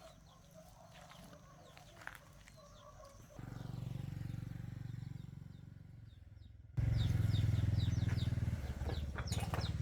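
Electric motor humming: it comes on at about three and a half seconds and dies away, then starts again suddenly and louder near seven seconds and keeps running. Birds chirp over it.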